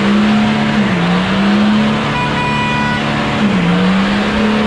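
A vehicle engine running loud and steady, its low drone dipping and rising in pitch a few times, with a brief higher tone lasting about a second, a little after two seconds in.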